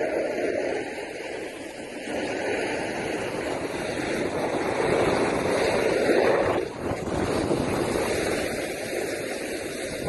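Steady rushing noise of wind and of sliding over packed snow on a ski slope, rising and falling in strength, with a brief drop about two-thirds of the way through.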